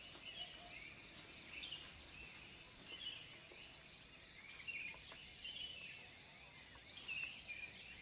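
Faint chorus of forest birds: many short chirps and twitters overlapping, with a few louder calls about a second in and again near the end.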